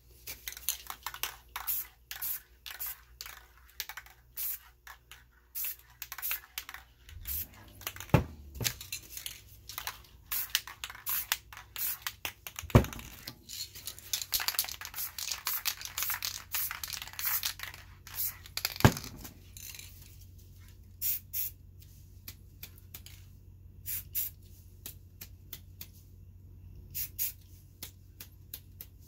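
Aerosol spray-paint cans hissing in short bursts, with a longer stretch of spraying in the middle, among crackling and crinkling of newspaper and paper stencils being handled. A few sharp knocks stand out, and a low steady hum comes in about a quarter of the way through.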